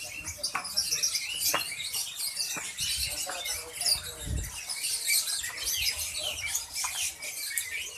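Many caged songbirds chirping and twittering at once, a dense chorus of high, quick calls, with a low bump about four seconds in.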